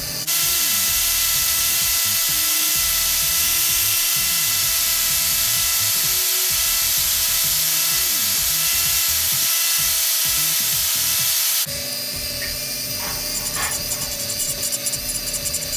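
A small angle grinder with a sanding disc runs with a steady high whine for about eleven seconds. It then gives way to the thinner whine of a handheld rotary tool, its cutoff wheel grinding a brass razor fitting with short scratchy bursts. Background music plays underneath.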